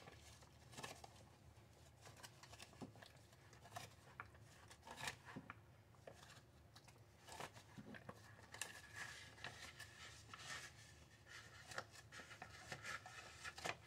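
Faint crinkling of a foil Mylar pouch and soft scraping as the food inside it is stirred, in scattered short rustles and clicks.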